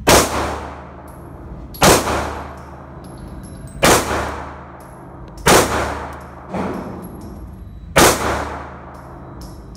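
Glock G43X 9mm subcompact pistol firing five slow, deliberate shots about two seconds apart, each bang ringing out in the reverberant indoor range, with a fainter bang between the fourth and fifth shots.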